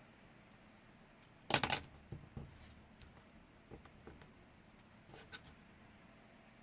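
Paper and small craft supplies being handled on a work table: a loud rustle-and-clatter about a second and a half in, then scattered light clicks and taps.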